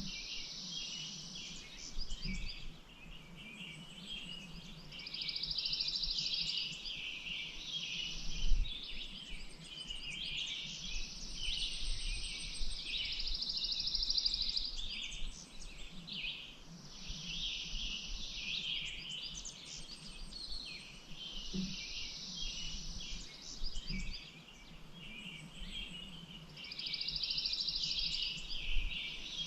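A chorus of several songbirds chirping and singing over one another. A buzzy trill lasting about two seconds comes back roughly every eight seconds. There are a few short low thumps, the loudest about eight and a half seconds in.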